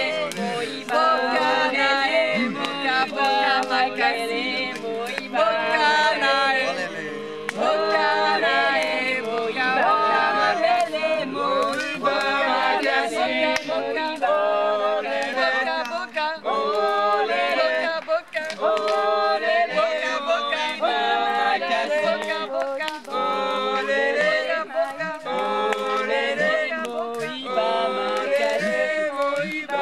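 A group of people singing together without instruments, several voices overlapping in a continuous chant-like song.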